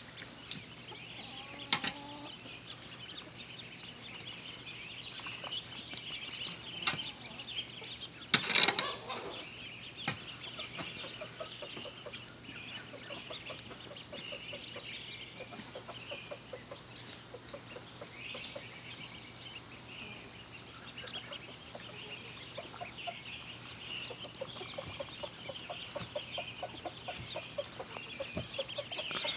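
A large flock of ducklings peeping continuously, many high chirps overlapping, with one short, loud burst about eight seconds in.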